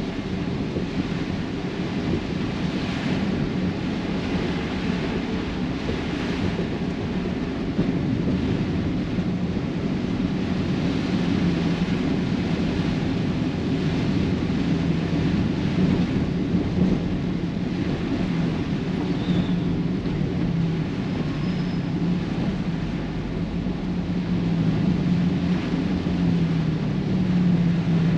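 A vehicle driving through rain: a steady rush of rain and road noise over a wavering low engine hum, growing louder near the end.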